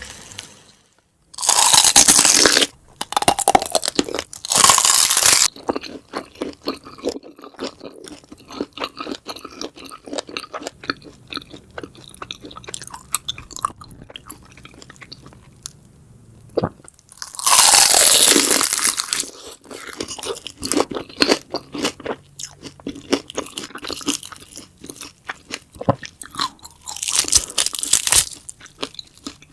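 Close-up crunching and chewing of food: a run of quick crunchy clicks broken by a few loud, longer bursts, about two seconds in, around four to five seconds, near eighteen seconds and near twenty-seven seconds.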